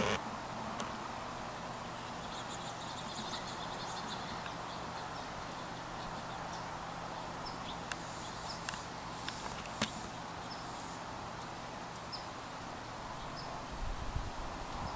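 Outdoor ambience: a steady hiss with a faint low hum, a few scattered faint clicks and faint high chirps, and a low rumble near the end.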